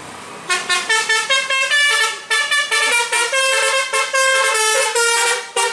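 Bus musical air horn ('telolet basuri') playing a quick tune of short, separate pitched notes, starting about half a second in.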